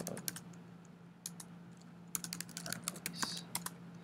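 Typing on a computer keyboard: irregular keystroke clicks, with a short pause about half a second in before the typing picks up again. A faint steady hum lies under it.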